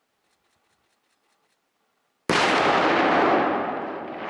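Demolition charge detonating: after about two seconds of quiet, a sudden loud blast that rings on and slowly dies away.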